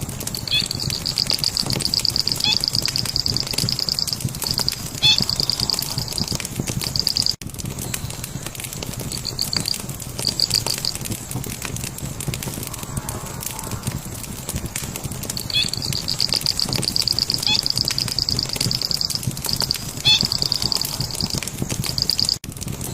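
A fire crackling steadily, with a bird's high, fast trill repeating over it in runs of a second or more.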